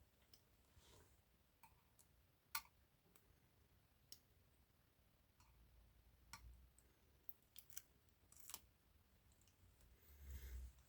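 Faint, scattered metallic clicks of lock-picking tools working inside a lever lock, about eight light ticks spaced irregularly, the sharpest about two and a half seconds in. A soft low bump of handling comes near the end.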